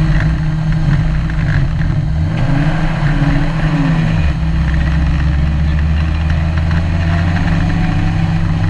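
Ginetta G20 GTR rally car's engine heard from inside the cabin, running steadily at low revs. Between about two and four seconds in, the revs rise briefly and fall back, then the engine settles into a steady lower note.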